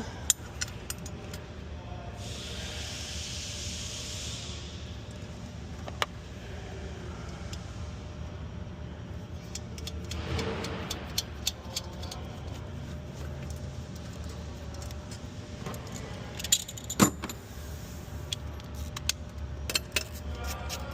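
Hand tools and small metal hardware clinking and clicking while a plate is being refitted, with scattered sharp knocks and a louder pair of knocks about 17 seconds in. A short hiss runs for about two seconds, starting around two seconds in.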